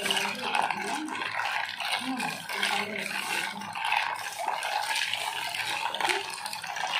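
Ice cubes clinking and rattling against a plastic jug, with the red syrup drink (sirap limau) sloshing as a hand stirs the ice in.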